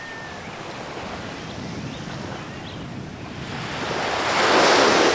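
Ocean surf washing steadily, with one wave surging up loudly in a rush about four seconds in.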